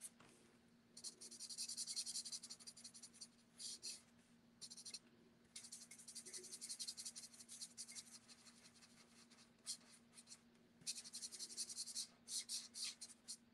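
Felt tip of a Stampin' Blends color lifter, a colourless alcohol blender marker, scratching over cardstock in short strokes, in several spells with pauses between, as it bleeds out the gray shading.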